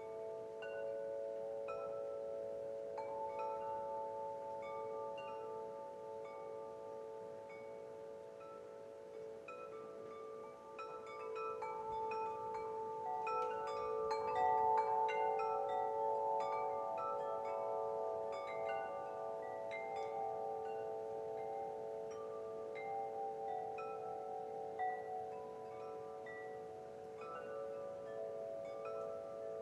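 Wind chimes ringing: many overlapping struck notes over long, held lower tones, growing busier and louder about halfway through.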